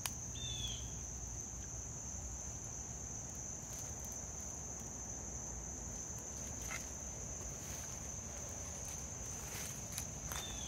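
Steady, high-pitched chorus of insects that runs without a break, with a short falling bird chirp just after the start and again near the end, and a few faint clicks.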